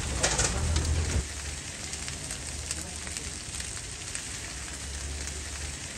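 Chicken shawarma meat sizzling on a hot flat griddle: a steady hiss, louder with a few clicks for about the first second, then quieter and even.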